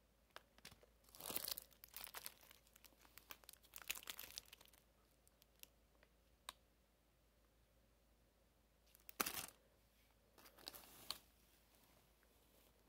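Soft crinkling and crackling of clear plastic candy wrappers being handled. It comes in two spells, one in the first five seconds and another around nine to eleven seconds in.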